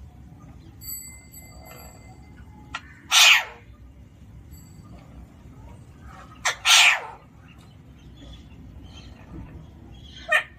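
Alexandrine parakeet giving three short, loud, harsh calls, about three seconds apart.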